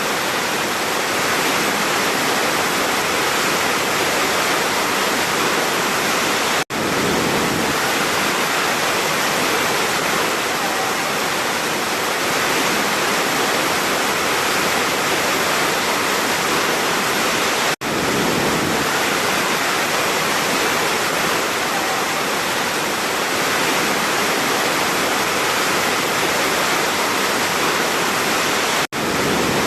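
Large waterfall: a steady rush of falling water, broken by three momentary dropouts about eleven seconds apart.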